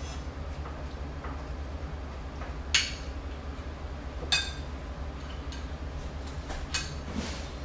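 Dishes and tableware clinking during a meal: about three sharp clinks, the loudest almost three seconds in, with a few fainter taps, over a steady low hum.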